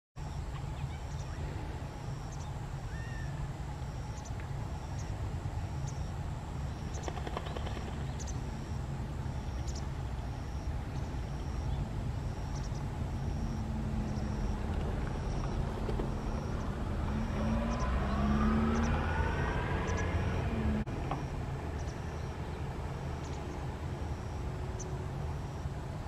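Steady low rumble of distant road traffic, with one vehicle's engine rising in pitch and getting louder about two-thirds of the way through, then dropping back.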